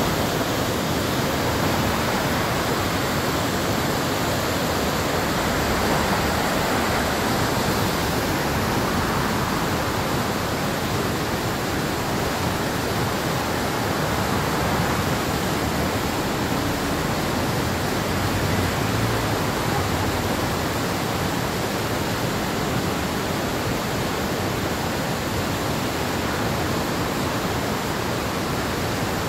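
River rapids: whitewater rushing steadily over rock ledges and through a chute, a constant loud rush with no let-up.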